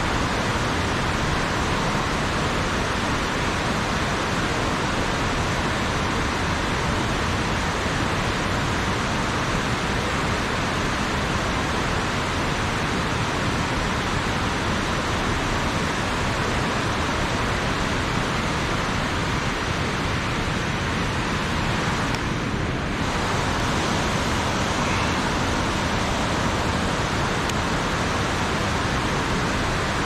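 Loud, steady rush of water pouring over a small weir into the river. The hiss dulls briefly once, about two thirds of the way through.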